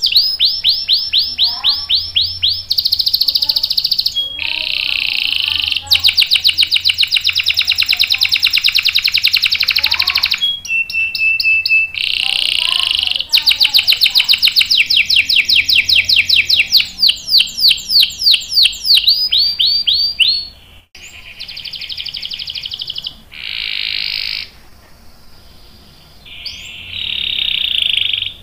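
Canary singing long rolls: fast trills of rapidly repeated high notes, switching to a new trill every few seconds. The song goes much quieter for a few seconds about two-thirds of the way through, then picks up again.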